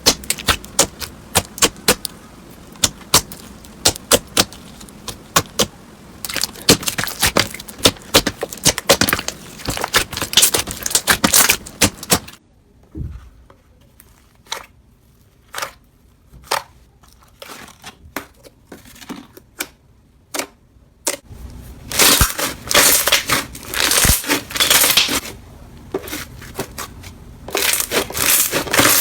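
Slime being squeezed and pressed by hand, giving a run of sharp clicks, pops and crackles. It turns quieter and sparser about halfway through, then crackles densely and loudly again near the end.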